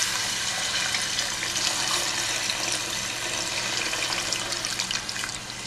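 Chicken broth pouring from a can in a steady stream, splashing into a stainless steel pot of chicken and vegetables; it eases a little near the end.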